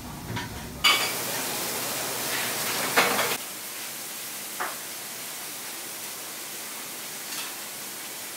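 Kitchen sounds: a sudden loud hiss lasting about two and a half seconds, with a sharp knock near its end, then a steady quieter hiss with a couple of light clicks as a metal ladle spreads sauce over pizza dough.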